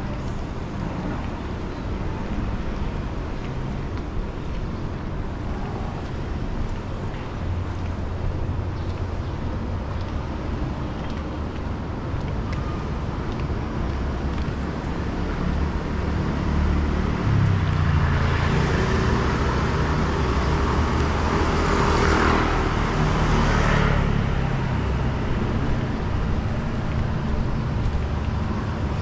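Street traffic: motor vehicles running with a steady low rumble. About two-thirds of the way through, a vehicle passes close and is loudest for several seconds.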